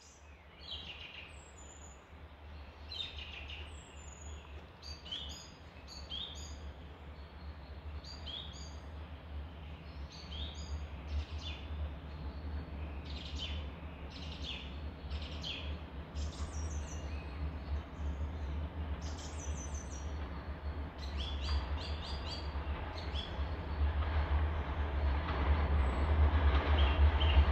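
Small birds chirping and singing, with the low rumble of an approaching passenger train growing steadily louder, loudest near the end.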